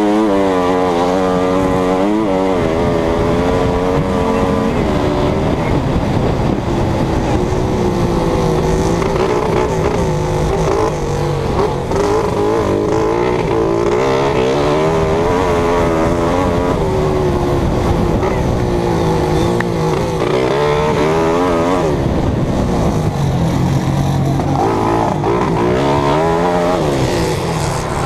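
A race vehicle's engine heard up close, revving up and dropping back again and again as it accelerates and changes gear, over a steady rush of noise.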